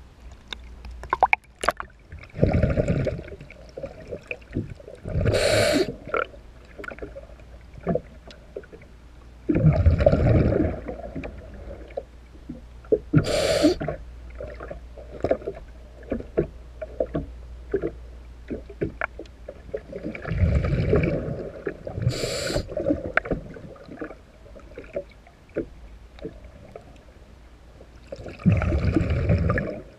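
Underwater breathing through a diver's regulator: four rumbling bursts of exhaled bubbles lasting about a second each, with a short sharp hiss of inhalation between them. Scattered light clicks and ticks run underneath.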